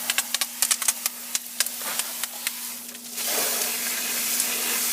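Garden hose spraying water onto an air-conditioner condenser coil: irregular crackling spatters at first, then a steady hiss of spray from about three seconds in. A faint steady hum runs underneath.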